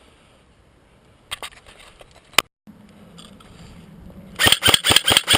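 G&G blowback AK47 airsoft gun firing on full auto, a rapid even rattle of about seven or eight shots a second that starts about four and a half seconds in. Before it come a few sharp clicks.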